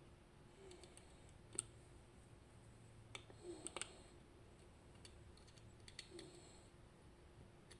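Sparse, faint metallic clicks and ticks of lock picking tools working in the keyway of an Elzett M magnetic rotor lock held under tension, a handful of irregular clicks with the sharpest about a second and a half in.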